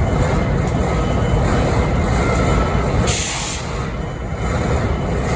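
Diesel locomotive BNSF 5910 idling with a steady low rumble. About three seconds in comes a short, high hiss of air lasting about half a second.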